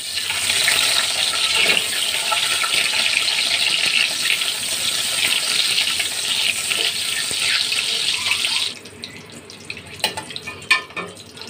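Hard-boiled eggs sizzling loudly in hot oil in an aluminium pan as they are turned with a spatula. The hiss drops off sharply about nine seconds in, leaving a quieter sizzle and a few clicks of the spatula against the pan.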